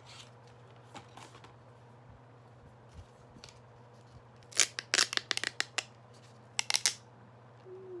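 Wrapped chocolate being torn and peeled out of its packaging: faint rustling of a paper box at first, then two loud bursts of sharp crackling and tearing, one around the middle and a shorter one near the end.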